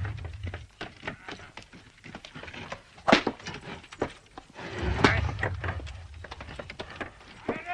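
Horse-drawn wooden cart on the move: an uneven run of knocks and rattles from the cart and the horse's hooves, with louder knocks about three and five seconds in, the second with a low rumble.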